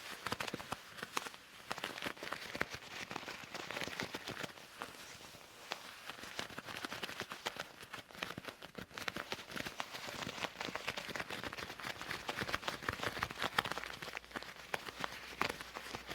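Loose leather gloves rubbing and scratching, a dense run of quick crackling clicks over a soft rustle.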